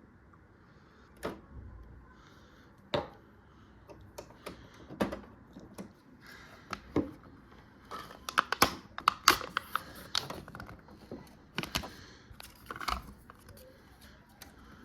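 Irregular plastic clicks, taps and crinkles from hands handling the parts and packaging of a Canon Pixma G3420 ink-tank printer, with a busy run of quick clicks in the middle.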